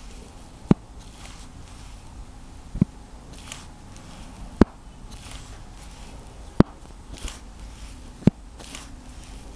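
Samsung Galaxy Z Fold 3 being folded open and shut by hand, its hinge giving a sharp click five times, about every two seconds, with faint handling rustle between. The owner takes the click for a spring-like noise from the hinge, toward its bottom end.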